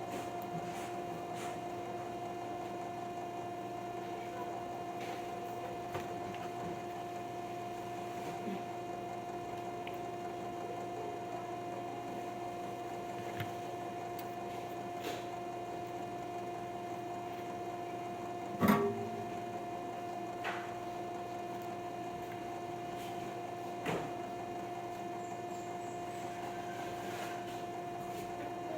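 Steady electrical hum with two constant tones, dotted with faint clicks and one sharper knock about two-thirds of the way through.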